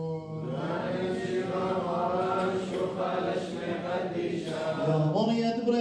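Male voices chanting the Assyrian Church of the East liturgy, holding long notes with slow melodic turns, with a strong, low held note near the end.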